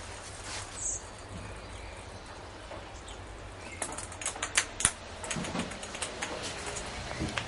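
A kitten chasing and batting a ping-pong ball on a hard tile floor: light clicks and taps of the ball and paws on the tiles, thickest about four to five seconds in, with a few duller thumps after.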